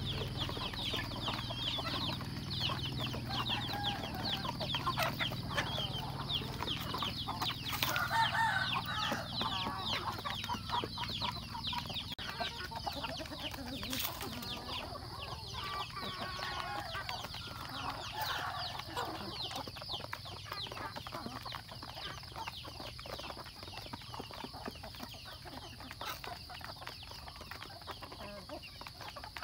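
A flock of roosters, hens and chicks clucking and calling while feeding, over a dense stream of short high chirps that thins out in the second half.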